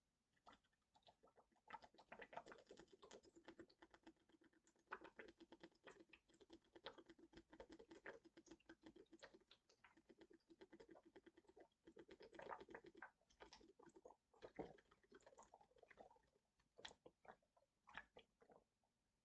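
Faint, dense, irregular crackling clicks, with a few sharper ticks in the second half; no burp is heard.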